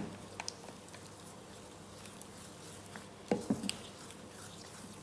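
Wooden spoon stirring thick melted chocolate in a glass dish: faint wet scraping, with a couple of soft knocks or squelches about three and a half seconds in.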